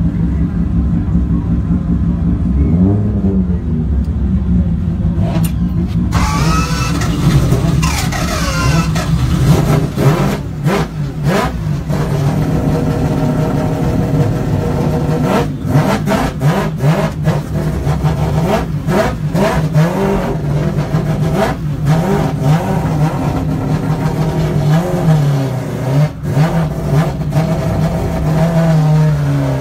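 Rotary engine of a drift car idling with a choppy note, heard from inside the cockpit. About six seconds in it is revved up sharply and back down, then blipped in short bursts several times.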